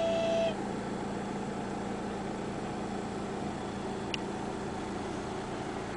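Diesel-hauled passenger train passing close by, heard from inside a vehicle: a steady low hum and rumble, with a short steady tone that stops about half a second in.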